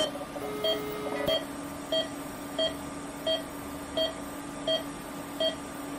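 Medical equipment beeping evenly, about three short beeps every two seconds, over a steady low hum, with a brief lower tone near the start.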